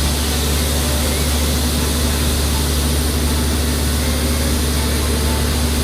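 Heavy machinery engine running steadily with a constant low drone.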